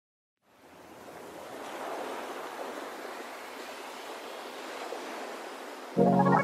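Shallow sea water lapping and washing in small waves, fading in over the first couple of seconds and then holding steady. Music cuts in suddenly near the end.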